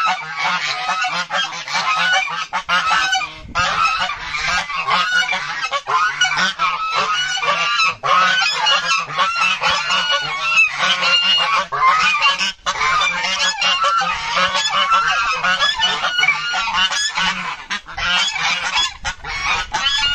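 A flock of African geese honking continuously, many birds calling over one another with hardly a break.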